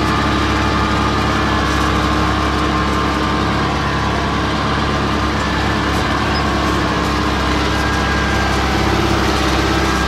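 Case 580 backhoe loader's diesel engine running steadily under light working load while the machine levels sand fill, heard from the cab.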